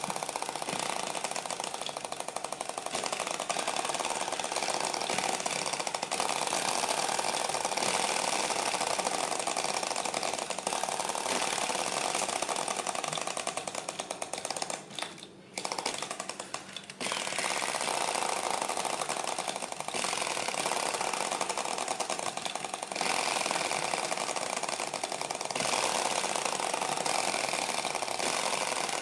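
Small flame licker (vacuum) heat engine running fast, its piston and flame valve making a rapid, steady mechanical clatter. The clatter fades out briefly about halfway through, then picks up again.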